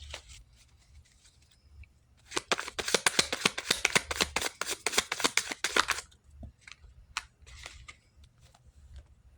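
A deck of reading cards being shuffled: a rapid run of card flicks lasting about four seconds, starting about two seconds in, then a few scattered taps.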